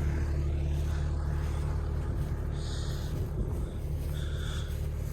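New Holland T7040 tractor's six-cylinder diesel engine running steadily at a constant speed, a low even drone.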